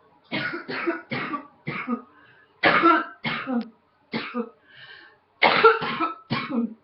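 A woman coughing repeatedly: a run of about ten short coughs in quick bursts, with brief pauses between the runs.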